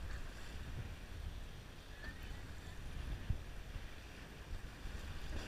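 Wind rumbling on the microphone and choppy water against the hull of a small fishing boat, with one short knock about three seconds in.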